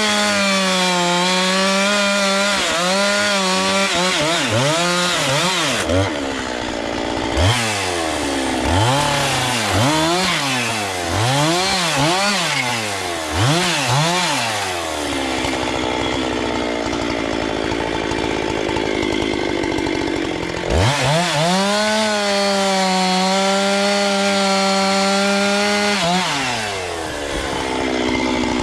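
Two-stroke chainsaw at full throttle cutting through firewood, the engine held at high revs under load. In the middle it is revved down and up several times and drops to idle, then it goes back to full throttle for another long cut and falls back to idle near the end.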